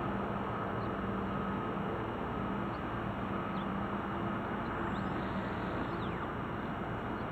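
Steady outdoor background noise with a faint low hum, and a faint high tone that rises and falls about five seconds in.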